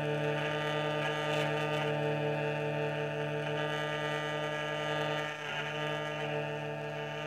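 Russian hurdy-gurdy sounding a long held chord as its wheel is cranked: a steady drone of several sustained notes, with a brief wobble in pitch a little past halfway.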